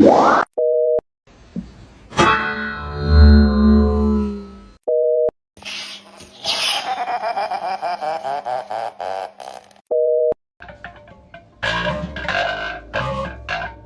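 A string of odd electronic sounds: warbling, gliding and distorted tones and a low rumble, cut by a short steady two-tone beep like a telephone busy signal three times, about every five seconds.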